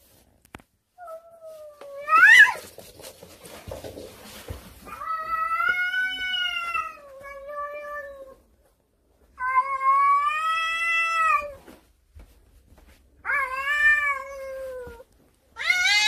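Mackerel tabby house cat giving a series of long, drawn-out meows, about five in all, the first rising sharply into a high cry. These are the wary, yowling calls of a cat facing other cats.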